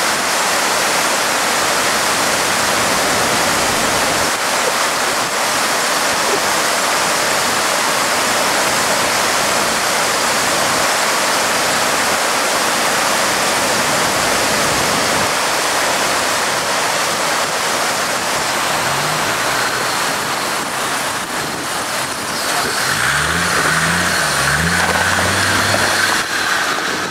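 Swollen stream rushing loudly over rocks, steady throughout. Through it, a Land Rover Defender 90 Td5's five-cylinder turbodiesel can be heard revving as the truck climbs out of the water, briefly about two-thirds of the way in and then in several rising revs near the end.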